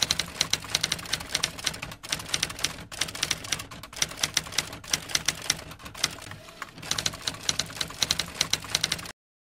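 Manual typewriter keystroke sound effect: rapid key strikes in runs broken by short pauses, stopping abruptly about nine seconds in.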